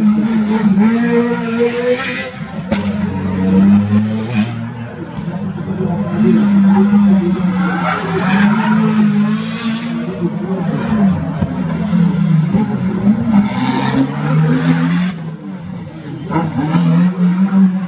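Rally cars, a Peugeot 208 and a Renault Clio among them, passing one after another through a tight roundabout, their engines revving up and down with several louder surges, and some tyre squeal.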